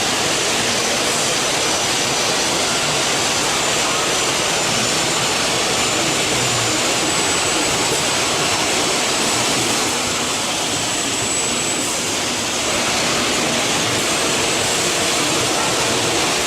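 Four-axis CNC machining center running, a steady loud rushing noise with a faint high whine.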